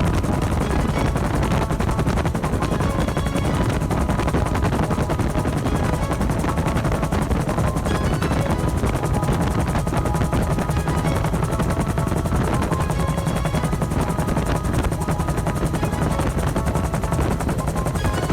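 Bell UH-1 Huey helicopter in flight, its two-bladed rotor beating rapidly and steadily over the engine.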